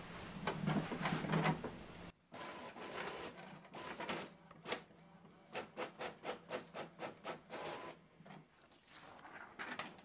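Epson EcoTank ET-8550 inkjet printer printing a test page: its paper-feed and print-head mechanism whirs and clicks. In the middle the clicks come in a regular run of about three a second.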